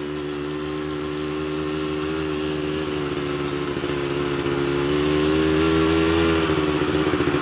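ATV engine running at steady speed while riding, the engine note holding fairly even and growing gradually louder, becoming uneven and choppy near the end.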